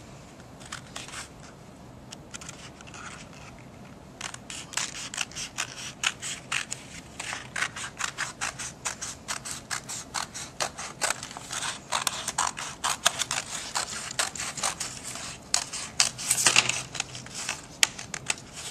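Scissors cutting paper: a run of short snips, sparse and faint at first, then quicker and louder from about four seconds in.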